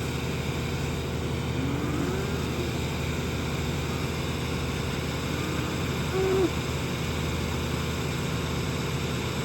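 Tractor engine running steadily at idle, with a few faint short pitched calls over it, the clearest one about six seconds in.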